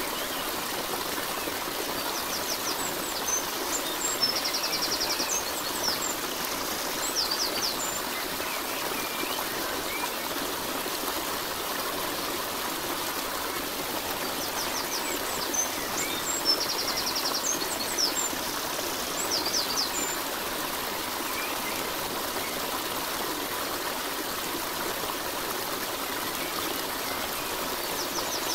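Steady rush of running water, like a stream, with groups of short high bird chirps that come back about every thirteen seconds.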